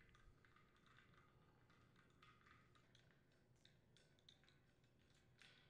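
Near silence with faint, scattered clicks from a socket wrench turning the mounting nuts off a condenser fan motor on its wire fan guard.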